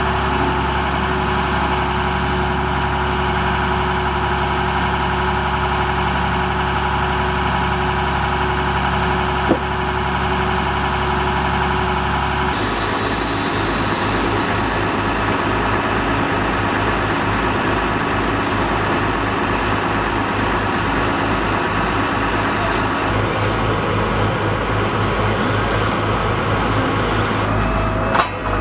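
Engine of a truck-mounted water-well drilling rig running loudly and steadily. About twelve seconds in the sound changes abruptly to a pulsing low throb as the rig keeps working.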